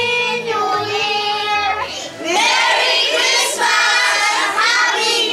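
Children singing into a handheld microphone over a backing track; about two seconds in, the backing drops away and many voices sing together, louder.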